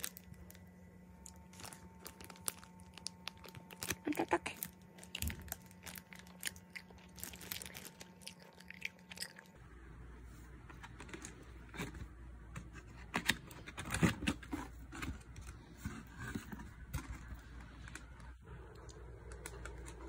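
A person eating close to the microphone: crunchy bites and chewing of lettuce wraps, with many short clicks scattered throughout.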